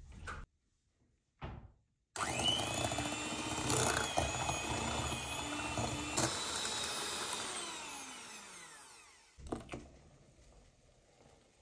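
Electric hand mixer beating eggs, sugar and mascarpone: the motor starts suddenly about two seconds in and whines steadily, then slows down with a falling pitch and fades out.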